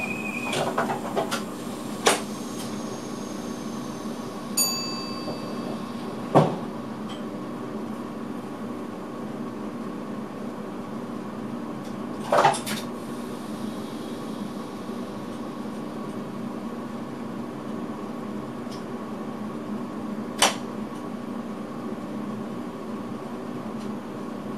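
Inside a standing electric train's cab: the steady hum of its onboard electrical equipment, broken by a few sharp clicks and knocks, the loudest about six and twelve seconds in, and a short beep about four and a half seconds in.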